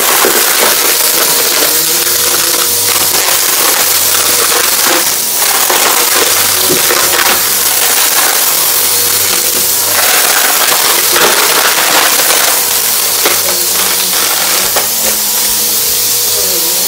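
Bissell upright vacuum cleaner running on a rug with a steady motor whine, sucking up scattered crunchy debris that crackles and clicks as it goes up.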